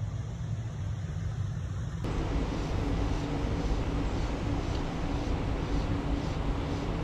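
Steady outdoor rumble of wind on the microphone over the hiss of a shallow, rippling river. It sounds muffled at first and turns fuller and brighter about two seconds in.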